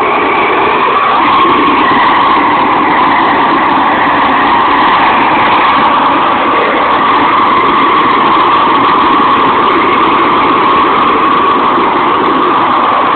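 A 500,000 BTU propane torch fed from a 100 lb cylinder, burning full on with a loud, steady jet-like rush.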